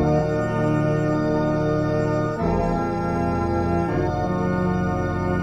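Background organ music: held chords that come in suddenly at the start and change twice, about two and a half and four seconds in.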